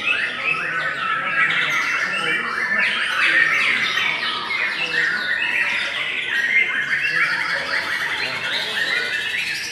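White-rumped shama singing: a continuous, dense stream of rapid, varied whistles, chirps and chattering notes.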